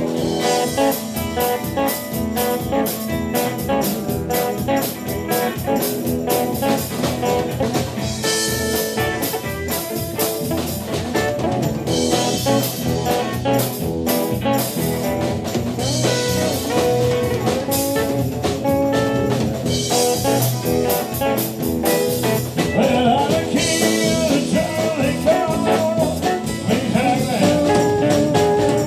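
Live rock-and-roll band playing: electric guitars over electric bass and a drum kit keeping a steady beat.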